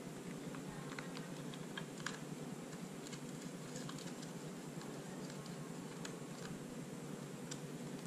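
Scattered light clicks and taps of small parts being handled: an anodized visor plate kit being fitted by hand against a Shark motorcycle helmet shell, over a low steady hum.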